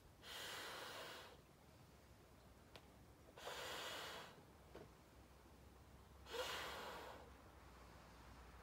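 A person's breathing while blowing up a party balloon by mouth: three breaths, each about a second long and roughly three seconds apart.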